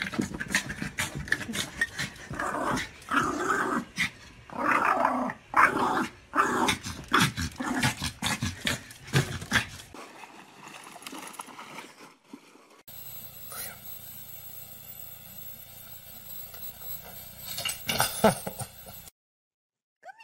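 A dog making a rapid string of short pitched vocal sounds through the first ten seconds. A quieter stretch follows, with a faint steady hum, and the sound drops out to silence near the end.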